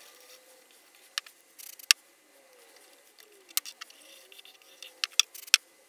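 Scattered light clicks and taps as a glue bottle and a small plywood block are handled on a plywood workbench while glue is applied to the block, about half a dozen separate clicks over a faint hiss.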